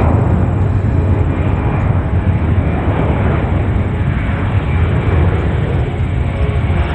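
Boeing C-17 Globemaster III's four Pratt & Whitney F117 turbofan engines, a steady, deep, loud jet rumble as the big transport flies low past.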